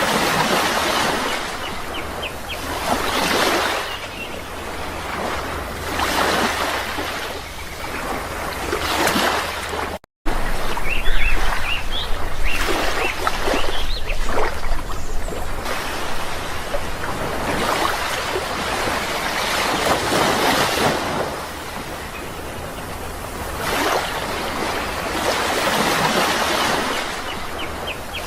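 Sea waves breaking and washing in, the surf swelling and falling every few seconds, with a few short bird chirps above it. The sound cuts out for a moment about a third of the way through.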